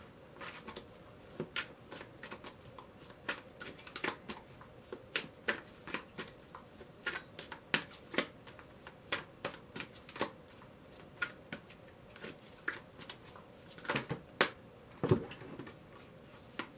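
Tarot deck being shuffled by hand: an irregular run of soft card snaps and clicks, two or three a second, with a duller thump near the end.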